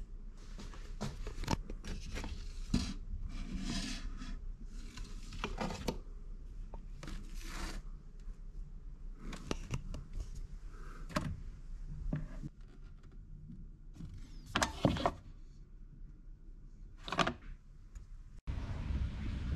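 Scattered handling noises: short rustles, clicks and knocks, with a couple of sharper clicks near the end. The sound then cuts off abruptly into a steady low rumble.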